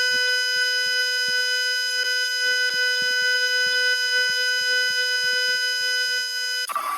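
A loud, continuous electronic beep held on one buzzy pitch without a break, cutting off abruptly near the end; a busier sound with shifting pitches starts right after it.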